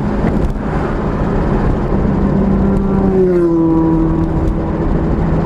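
Jaguar E-type's 3.8-litre straight-six engine running on the move over tyre and road noise, its note easing down about three seconds in as the revs drop.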